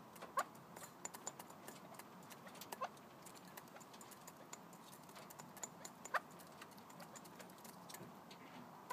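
Red-legged partridges pecking at feed pellets in a bowl: a stream of quick, irregular clicks of beaks on pellets and bowl, with three brief chirps at intervals of a few seconds.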